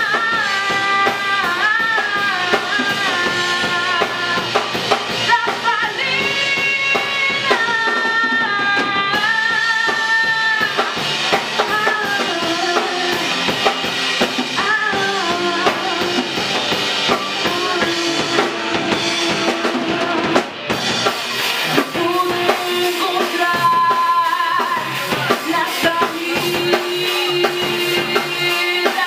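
Live rock band playing a song: drum kit with snare and bass drum under electric guitars, with a melody line moving in long held notes.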